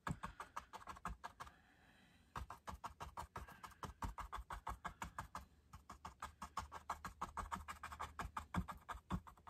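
Paintbrush dabbing paint onto a canvas: a quick run of light taps, about five a second, with a short pause near two seconds in.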